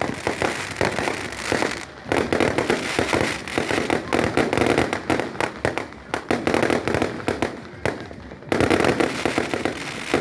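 Fireworks going off in a near-continuous barrage of bangs and crackles, with brief lulls about two, six and eight seconds in.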